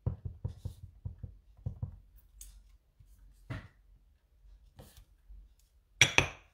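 A clear acrylic-block stamp tapped repeatedly onto a foam ink pad, a quick run of soft taps for about two seconds, then a few single knocks as it is pressed onto paper. A short, louder rustle or scrape comes near the end.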